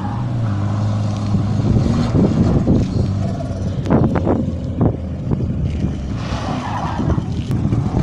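An old sedan's engine revving up and down repeatedly as the car is slid around tyre markers, with its tyres skidding on the tarmac. The hardest revving comes about halfway through.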